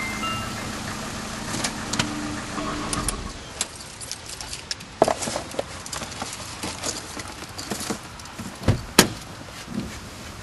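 The tail of mallet-percussion music fades out within the first few seconds. Then come scattered light clicks and knocks over low rumble, with one sharper knock about nine seconds in.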